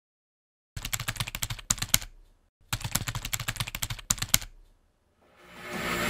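Typing sound effect: two quick runs of keystroke clicks with a short pause between them, one for each line of an on-screen caption being typed out. A rising swell of sound comes in near the end.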